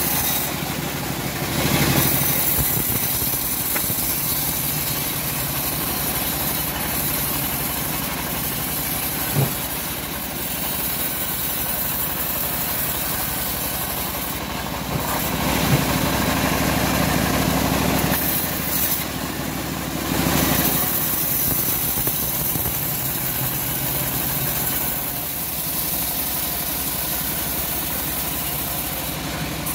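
Engine-driven homemade band sawmill running steadily, its engine note swelling louder in a couple of stretches, with two short knocks, one about a third of the way in and one about halfway through.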